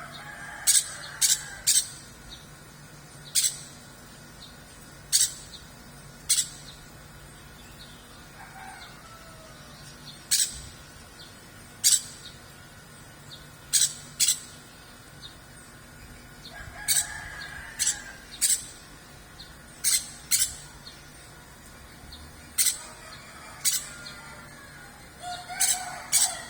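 Caged songbird giving short, sharp, high-pitched chirps, about twenty of them spaced irregularly a second or two apart. Roosters crow fainter in the background several times.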